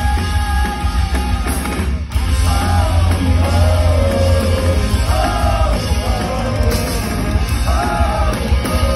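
Post-hardcore band playing live: electric guitars, bass and drums under a sung lead vocal, heavy in the bass. About two seconds in the music drops out briefly before the full band comes back in.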